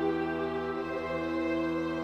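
Background music: slow, soft sustained chords.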